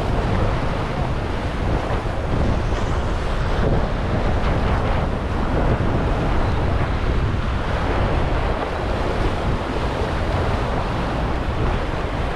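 Wind buffeting the microphone with a steady low rumble, over surf washing against the jetty rocks.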